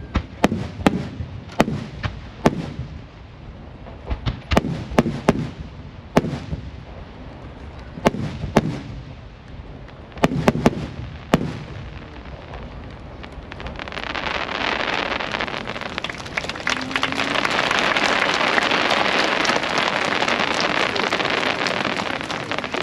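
Fireworks shells bursting in a string of sharp bangs over the first dozen seconds. After that a dense, steady crackling noise swells up and becomes the loudest sound.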